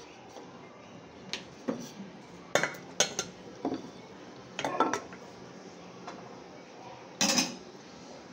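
Metal kitchen utensils and steel dishes clinking and knocking in a series of sharp, irregular clatters, while puri dough is handled on a board. The loudest clatters come in a cluster around the middle, with one more near the end.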